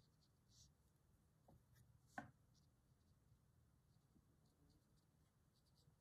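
Near silence: room tone, with a few faint soft ticks and one brief click about two seconds in.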